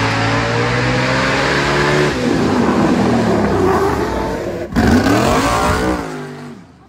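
Firematic racing cart's engine revving hard as it accelerates down the track, its pitch swinging up and down and dropping sharply about two seconds in. After a sudden break near the middle it revs again, then fades away near the end.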